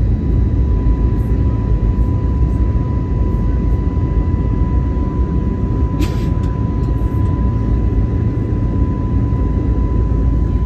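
Steady low rumble of an airliner cabin in flight, with a thin, steady high tone over it.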